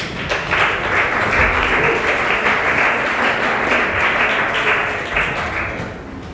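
An audience applauding, a dense patter of many hands clapping that dies away near the end.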